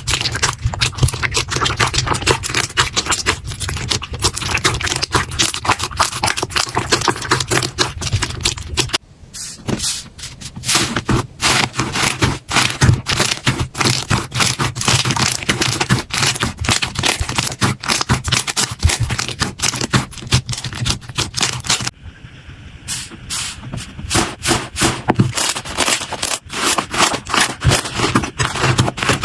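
Slime being squeezed and pressed by hand, a dense run of crackles and pops. The sound changes abruptly twice, with a brief quieter patch after each change.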